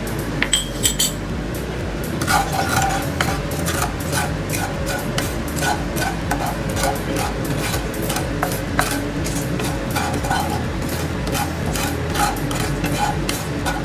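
Wooden spatula scraping and stirring dry whole spices (seeds, dried red chillies and salt) around a nonstick kadai as they dry-roast without oil, in quick, repeated scraping strokes.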